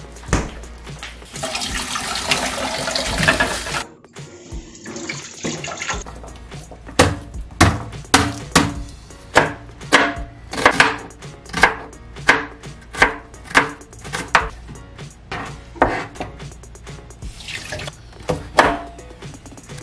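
A few seconds of steady rushing hiss, then a kitchen knife chopping vegetables on a plastic cutting board in sharp regular strokes, about two a second.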